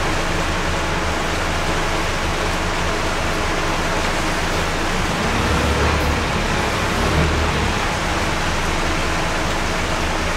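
Scania K230UB bus with its Scania DC9 diesel engine running under way, heard from inside the cabin, over a steady hiss of rain and tyres on a wet road. The engine's low hum grows louder for a couple of seconds around the middle.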